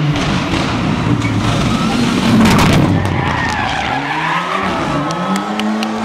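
A Mitsubishi Lancer Evolution rally car's turbocharged four-cylinder engine running hard as the car slides through a turn, tyres skidding loudest about halfway. Near the end the engine pitch climbs as it accelerates away, with a few sharp clicks.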